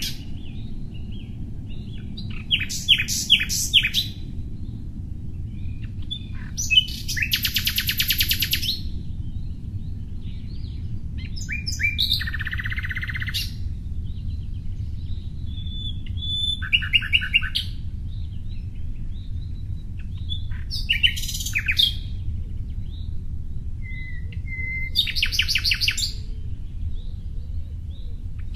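Small birds singing in short bouts of rapid chirps and trills, about seven phrases a few seconds apart, over a steady low hum.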